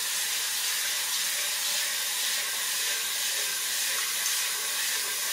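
Kitchen sink faucet running in a steady stream into a stainless steel stock pot holding dry brown rice, filling it with water to rinse the rice.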